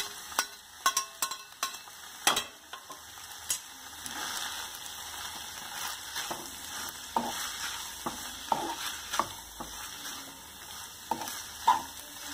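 Noodles and vegetables sizzling in a non-stick wok over a high gas flame while a wooden spatula tosses and mixes them. Sharp knocks of the spatula and the steel bowl against the pan come thick in the first few seconds, then scattered.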